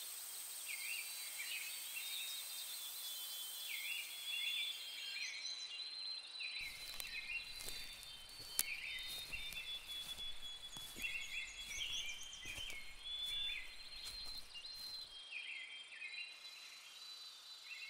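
Forest ambience: a bird repeating a short call phrase every second or two over a steady, high insect drone, with a few faint clicks in the middle.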